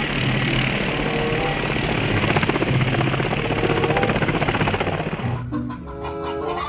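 Helicopter rotor sound, a fast steady chop; about five seconds in it stops and a tune of clear pitched notes takes over.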